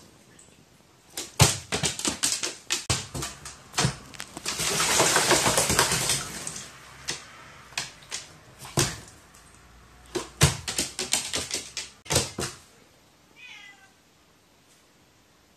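A quick run of sharp taps and clicks, with a stretch of rustling hiss around five seconds in. Near the end a cat gives one short meow that falls in pitch.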